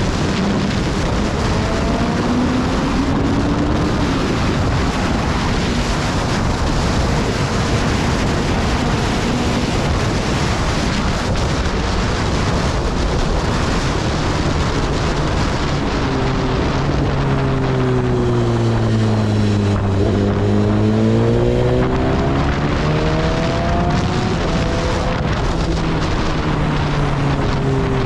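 Motorcycle being ridden at speed, with heavy wind noise on the microphone over the engine. About two-thirds of the way in, the engine note falls steadily for a few seconds and then climbs again as the revs drop and pick back up.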